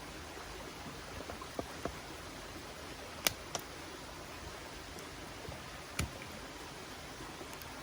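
Steady rush of a river, with a campfire's burning wood giving a few sharp crackles and pops, the loudest snaps about three and six seconds in.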